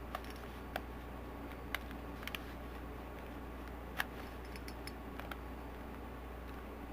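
Plastic Rubik's Cube layers being twisted by hand: irregular light clicks and clacks, the sharpest about four seconds in, over a steady low hum.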